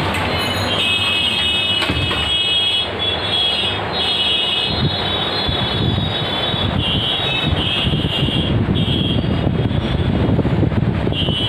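Steady background noise, with a high-pitched several-toned sound that comes and goes over it and a rougher low rumble from about halfway through.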